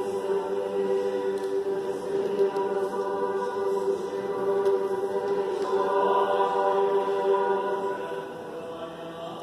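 Church choir singing a slow chant in sustained chords, unaccompanied, with the sound growing quieter near the end.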